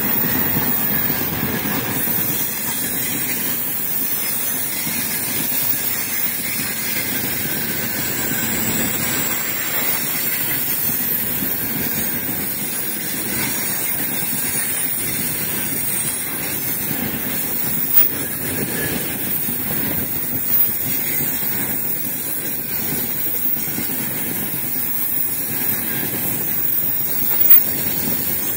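Freight train of open gondola wagons rolling past close by: a steady rumble and hiss of steel wheels on the rails, with a few short, sharp knocks from the running gear, near the middle of the stretch and again near its end.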